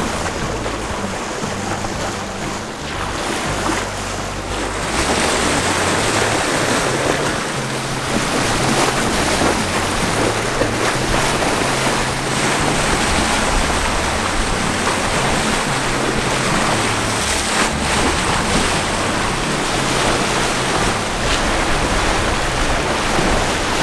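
Rough, breaking water rushing past a sailboat's hull in a tidal pass where the flood tide makes the water boil and stand up in a wave, with wind buffeting the microphone. It grows louder about five seconds in.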